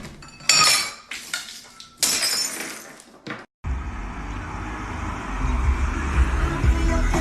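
Two loud crashes with a bright, clinking clatter, about a second and a half apart, as something breaks. After a sudden cut to silence, a steady low rumble starts and grows louder.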